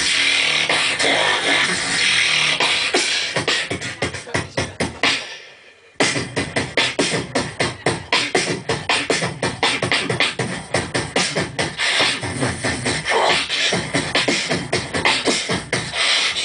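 Human beatboxing into a handheld microphone: a fast rhythm of mouth-made drum sounds. It fades away about five seconds in, breaks off almost to silence, then starts again suddenly a second later at full level.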